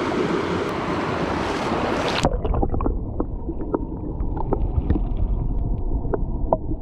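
Fast stream current rushing over rocks. About two seconds in the sound turns suddenly dull and muffled as the microphone goes underwater, leaving a low rumble of current with scattered small clicks and pops.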